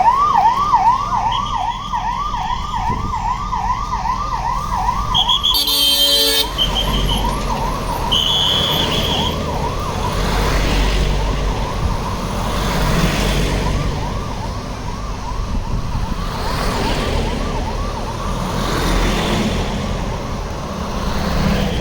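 Emergency vehicle siren in a fast yelp, rising and falling about three times a second. A short crackling burst comes about six seconds in. After it the siren goes on fainter under a low rumbling noise.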